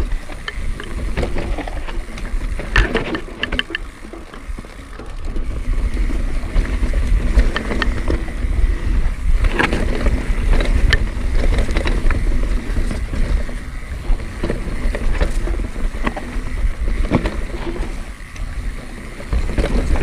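Pivot Switchblade mountain bike rolling fast down a dirt singletrack: tyres running over dirt and stones, with irregular knocks and rattles from the bike over bumps and a low rumble of wind and vibration on the camera microphone.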